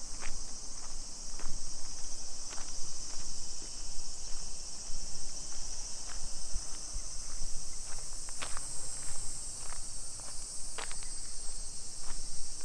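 Steady high-pitched drone of insects, with scattered footsteps and small clicks on the pavement.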